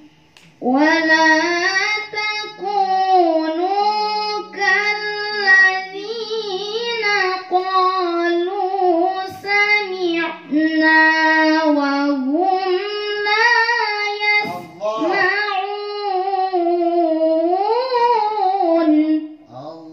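A woman chanting melodic Quran recitation (tilawah) in long phrases with ornamented, wavering pitch and brief pauses for breath. Near the end the voice climbs to a high swell, then falls away.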